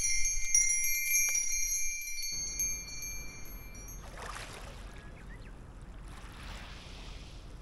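An assortment of Japanese wind bells (fūrin) and metal chime tubes ringing in the breeze, fading away over the first few seconds. Then small waves wash up onto a sandy beach twice, softly.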